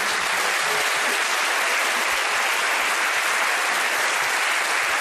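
Studio audience applauding steadily, a dense even clatter of many hands.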